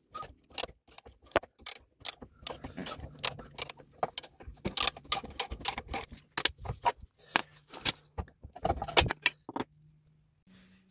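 Ratchet wrench with a half-inch-drive 17 mm deep socket, clicking quickly and unevenly as it turns a bolt. The clicking stops near the end.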